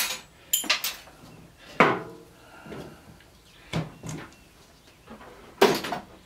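Small scrap parts from a microwave being handled and dropped: about six sharp knocks and clatters, the loudest about two seconds in and a last cluster near the end.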